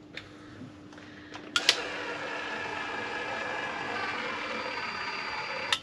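A cordless powered caulking gun's motor and gear drive running steadily for about four seconds, pushing adhesive out of the tube. It starts with a click a second and a half in and stops with another click near the end.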